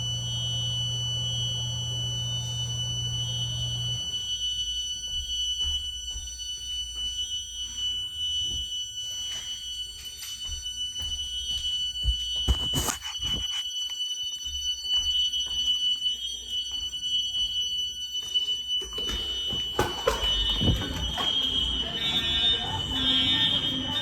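Fire alarm sounding one steady high-pitched tone throughout. Music with a deep bass plays under it and cuts off about four seconds in. Crowd voices grow louder near the end, with a sharp knock about halfway through.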